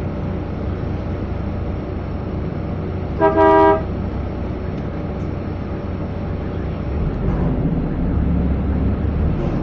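Public bus engine rumbling steadily, heard from inside the bus. About three seconds in a vehicle horn sounds, a short toot followed by a half-second blast. About seven seconds in the engine's rumble grows louder as the bus pulls forward.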